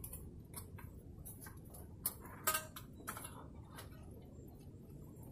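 Faint scattered clicks and taps of handling, with two sharper clicks about two seconds in, the second with a brief ring, over a low steady rumble.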